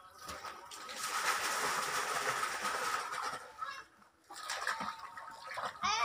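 Water splashing for about two and a half seconds, then a run of short, wavering pitched calls.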